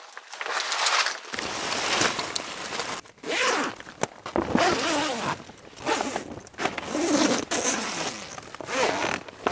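A zipper being run along the doorway of an inflatable air tent to attach a clear urethane extension panel, going in several rasping pulls with short pauses between them, mixed with the crinkling of the stiff plastic sheet.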